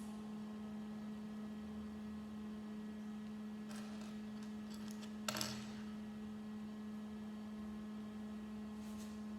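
A steady electrical hum with a few short clicks and rattles of small plastic LEGO pieces being handled and pressed together, the sharpest click just past halfway.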